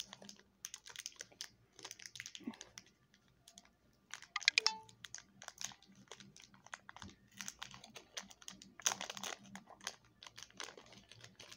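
Tissue paper and packaging rustling and crinkling in short, irregular crackles as a boxed set of doll accessories is unwrapped by hand. The crackles are louder about four and a half seconds and nine seconds in.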